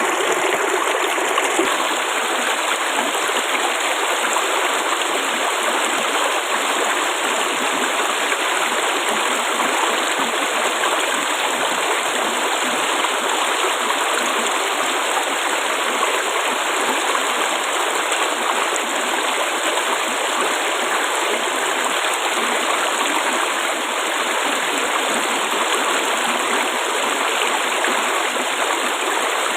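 Flowing water babbling steadily, an even unbroken rush.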